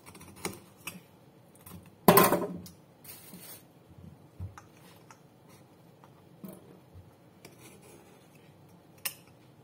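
Knife prying and scraping coconut meat away from the inside of the hard shell: scattered short scrapes and clicks, with one loud, longer scrape about two seconds in and a sharp click near the end.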